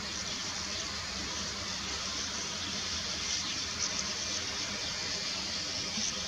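Sand martin breeding colony: many birds calling at once, their twitters merging into a continuous high chatter.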